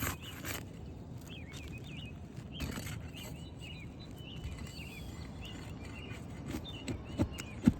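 Small birds chirping in quick, repeated short calls over a low outdoor hiss. There are a few sharp clicks at the start and two louder knocks near the end from work on the roof shingles.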